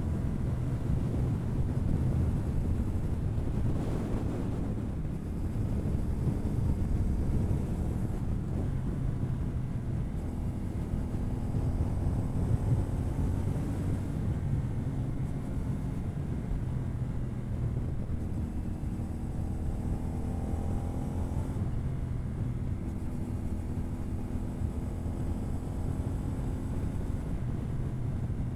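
CFMoto 450NK parallel-twin engine through its stock exhaust, heard from on the bike while riding hard, with wind noise on the microphone. The engine note climbs in pitch and drops back several times as it pulls through the gears.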